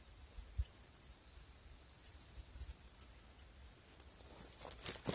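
Quiet open-air ambience: small high bird chirps every half second to second, over a low rumble on the microphone with a couple of soft thumps early on. Rustling and clicks come in near the end.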